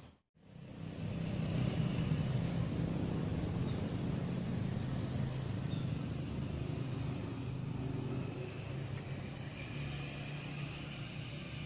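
A motor running steadily with a low hum, starting just after a sudden cut.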